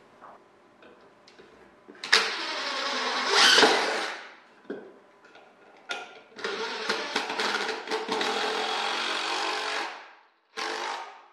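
Cordless drill running into the timber of a wooden stand in two long runs of about two and three and a half seconds, the first one getting louder just before it stops, then a short burst near the end.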